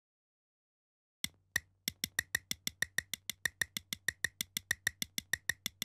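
Intro sound effect of sharp, even clicks: two slower clicks about a second in, then a steady run of about six clicks a second, over a faint low hum.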